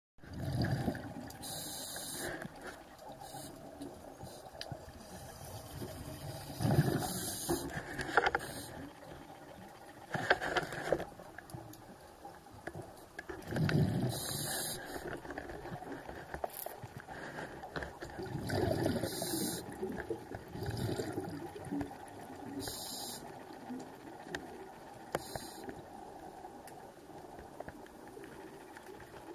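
Scuba diver breathing through a regulator underwater, heard on the camera. Each inhale gives a short hiss and each exhale a gurgling rush of bubbles, repeating about every five or six seconds.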